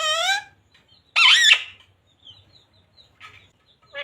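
A pet parrot calling: a high-pitched voiced call trails off at the start, then one loud, harsh call about a second in, followed by a few faint chirps.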